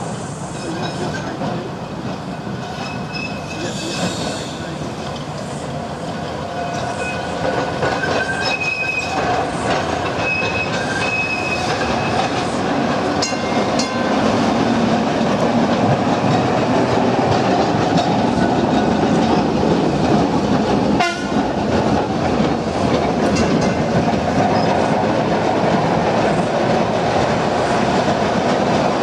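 Vintage electric tram running along the track, its rumble and wheel noise growing louder over the first half as it approaches, then staying loud. Brief high-pitched wheel squeals are heard in the first half.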